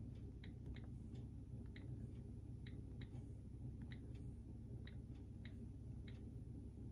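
iPad on-screen keyboard key clicks as a URL is typed: about a dozen faint, short ticks at an uneven typing pace, over a steady low room hum.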